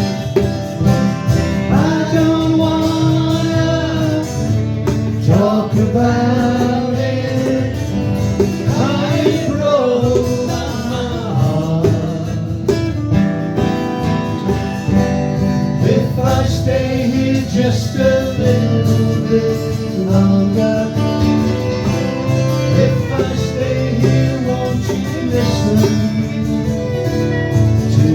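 Live country band playing a slow song on acoustic guitar, with a bending lead melody over the strummed chords.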